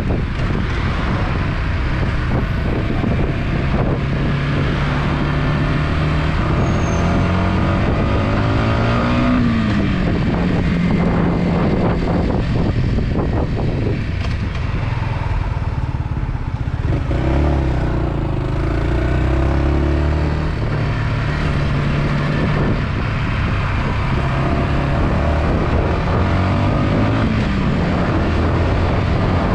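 Yamaha XSR125's single-cylinder four-stroke engine under way. The engine note climbs and drops back at a shift about nine seconds in and again near the end, with a lower drone around the middle, over wind rushing past the microphone.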